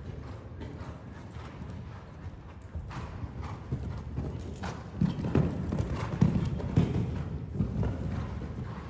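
Horse's hoofbeats cantering on sand arena footing: a steady rhythm of low thuds that grows louder about five seconds in.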